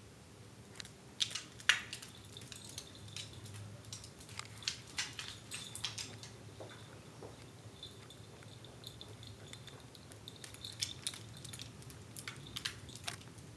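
A corgi's claws clicking and tapping irregularly on a hardwood floor as it walks about. The clicks are busiest in the first half and again near the end.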